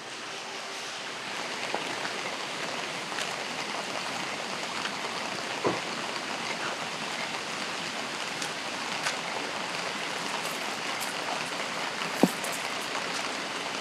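Steady rain falling, with a few sharp taps of drops hitting something close by; the sharpest tap comes near the end.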